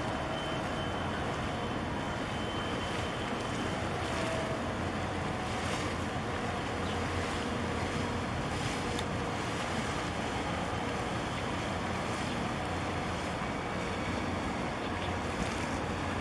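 Wind on the microphone and choppy harbour water sloshing, over a steady low engine drone from close-by shipping, with a few brief gusts swelling up.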